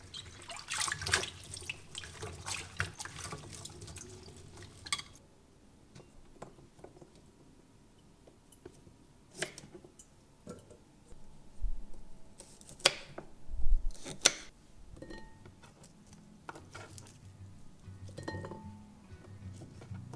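Water from a kitchen tap splashing over asparagus being rinsed at the sink for the first few seconds, then a knife cutting asparagus spears on a wooden cutting board: several sharp chops spread through the second half.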